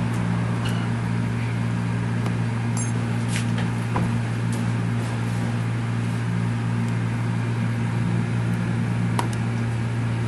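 A steady low hum throughout, with a few faint clicks and taps as the plastic legs of a tablet mount are slid and adjusted against a tablet's edges.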